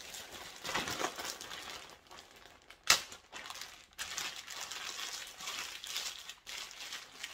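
Plastic zip-top bag of chicken, oil and seasoning crinkling and squishing as it is squeezed and kneaded by hand to coat the meat. A single sharp tap about three seconds in.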